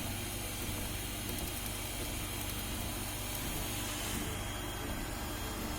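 FLSUN Cube 3D printer running, a steady mechanical hum and whir.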